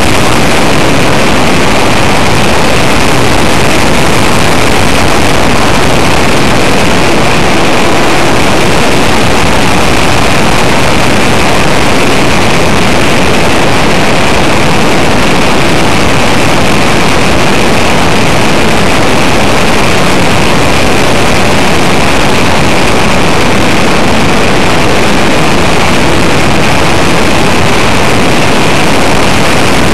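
Steady, very loud rush of a model airplane's motor, propeller and airflow, picked up by a small camera mounted on the fuselage of a radio-controlled Cessna 185 in flight.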